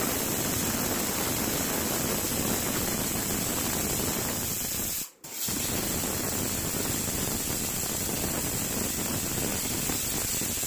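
Stovetop aluminium pressure cooker whistling: steam jets out under the lifted weight valve in a steady, loud hiss. This is one of the whistles counted to time the cooking of rice and dal. The sound cuts out briefly about five seconds in.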